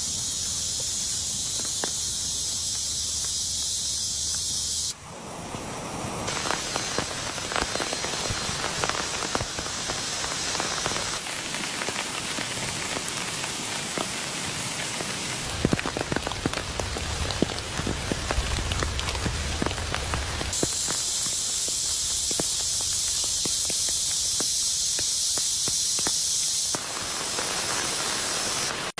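Heavy rain falling, in several abruptly changing shots. Some are a steady high hiss, while others carry many sharp close taps of drops on nearby surfaces.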